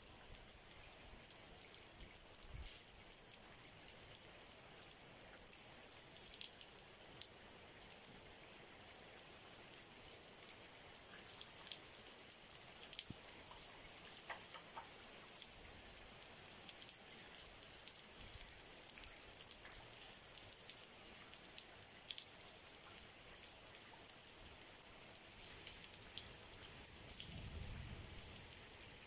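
Light rain falling on wet stone paving: a faint steady hiss with scattered ticks of single drops.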